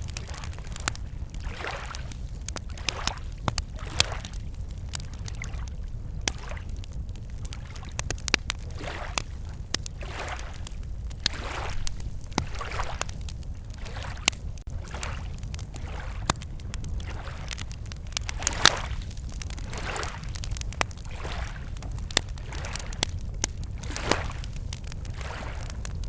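Wood campfire crackling, with many sharp irregular pops, over small lake waves lapping softly at the shore every second or two.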